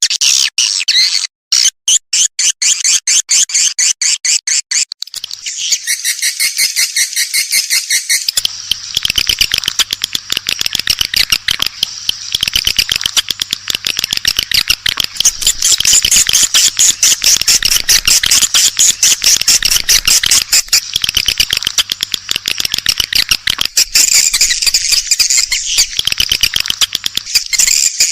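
Swiftlet lure-call track: rapid, high-pitched twittering and clicking chirps of swiftlets. The calls are sparser at first and become a dense, continuous chatter about eight seconds in, with a faint low hum underneath. This is the kind of call played in swiftlet houses to attract nesting birds.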